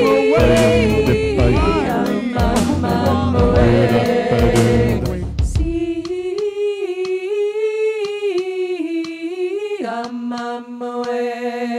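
Mixed a cappella vocal group singing live into handheld microphones: the full group with a deep bass line for about five seconds, then a single voice carrying a slowly wavering melody, joined about ten seconds in by a steady held chord.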